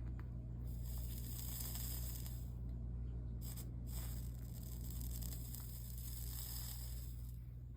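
Flux sizzling and crackling in stretches as a soldering iron melts solder along stained-glass joints, over a steady low electrical hum.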